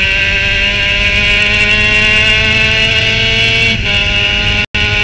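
Formula Mazda race car's rotary engine at full throttle, heard from the open cockpit, its pitch rising steadily as the car accelerates. It drops at an upshift near the end and starts climbing again, and the sound cuts out for an instant just before the end.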